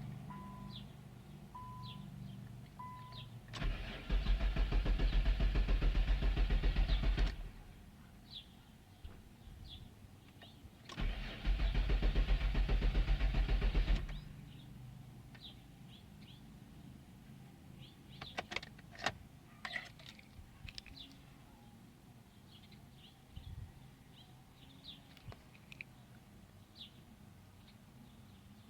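Two bursts of loud, rapid rhythmic mechanical noise from a 2000 Infiniti i30 that won't start, each lasting about three seconds with a pause between, a weird noise coming from the transmission area while the engine does not run. Four short beeps sound at the start.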